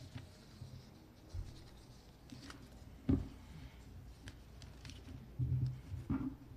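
Quiet room with scattered rustles and light knocks of people moving about, and one louder thump about three seconds in.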